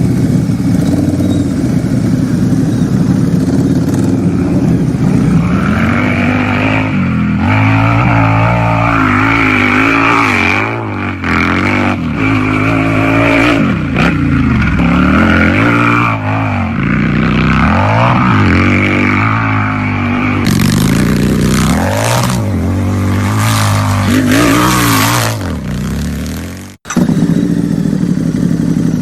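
Harley-Davidson V-twin motorcycle engine idling, then revved over and over in quick throttle blips, each rising and falling back. Near the end the sound drops out for an instant and it returns to a steady idle.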